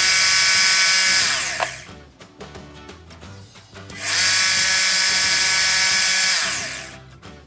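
Electric jigsaw mounted under a homemade jigsaw table, switched on twice for about two seconds each; after each run the motor whine falls in pitch as it winds down.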